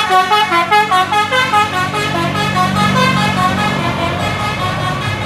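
Telolet basuri musical bus horn playing a fast melody of short, stepped notes, which thins out about halfway through. A low steady engine drone rises underneath as the notes fade.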